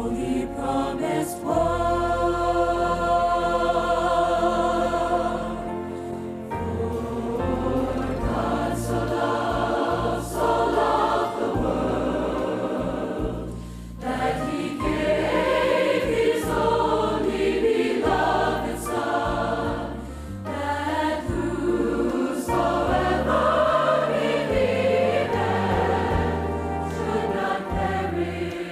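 Choir and ensemble singing a gospel song with instrumental accompaniment, sustained chords with a steady bass line.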